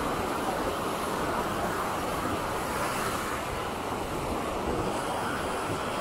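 Ocean surf breaking and washing up a sandy beach: a steady rush of waves, with some wind buffeting the microphone.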